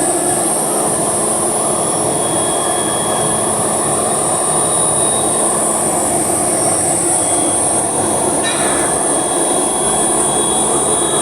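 Heavy machinery running steadily and loudly, a continuous mechanical noise with a low hum and a high metallic whine held over it.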